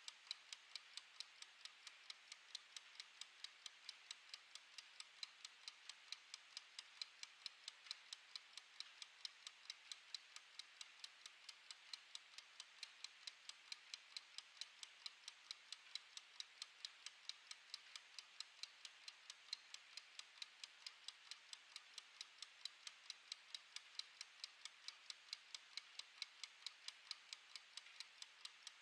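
Clockwork of a wind-up mechanical kitchen timer ticking quietly and evenly, several ticks a second, as the timer runs down.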